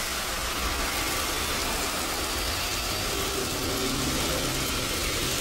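A steady low rumble with a hiss.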